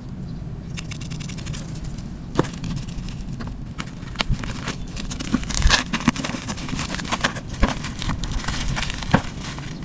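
Plastic wrap and a plastic bag being cut and pulled open with scissors: crackling and crinkling of the plastic with sharp snips, busier in the second half, over a steady low rumble.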